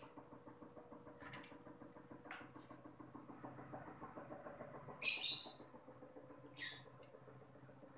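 Close-up eating sounds: a person chewing rice and fish eaten by hand, with short wet mouth smacks, the loudest about five seconds in and another a second and a half later, over a steady low hum.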